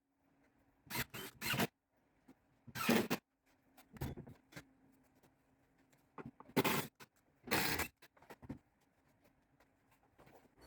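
A string of short scrapes and rustles, about seven of them spread irregularly, over a faint steady hum.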